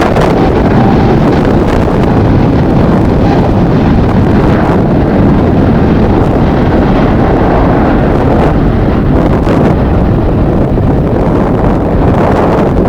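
Strong wind buffeting the microphone: a loud, continuous rumble with no pauses.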